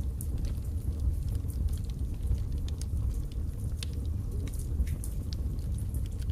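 Birchwood logs burning in a fireplace: a steady low rumble of flame with frequent, irregular sharp crackles and pops.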